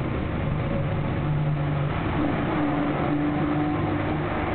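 Steady rumble of a motor vehicle running, with a low hum that shifts in pitch partway through.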